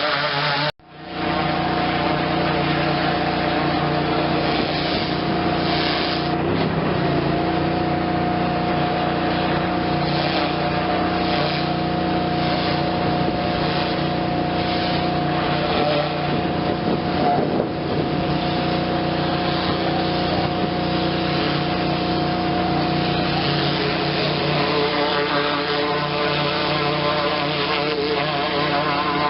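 Pressure washer rig's engine running steadily under load. The sound cuts out for a moment about a second in.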